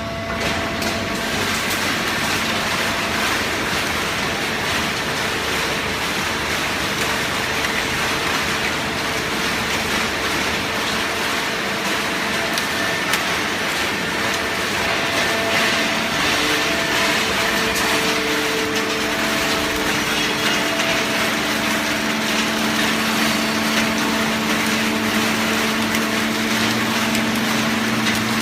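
Hydraulic system of a cardboard baling press running: a steady, loud mechanical whirr with a hum whose tones shift about halfway through.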